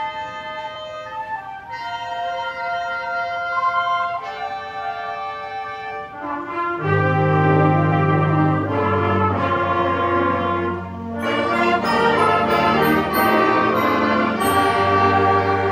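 Student concert band playing: held chords in the winds and brass, then about seven seconds in the full band comes in louder with low brass underneath.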